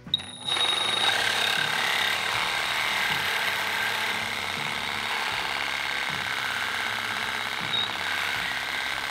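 Milwaukee M12 Fuel Hackzall reciprocating saw making a relief cut through the metal sleeve of a control arm bushing held in a vise. It starts about half a second in and runs steadily, a fast buzzing cut with a high whine.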